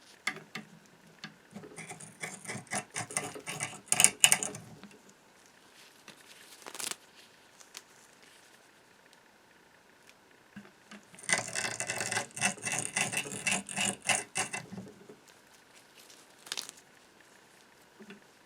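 Hand-cranked "The Gem" pinking machine being turned in two bouts of rapid clicking and rattling, its restored gears and cutting wheel working, with a couple of single sharp clicks between.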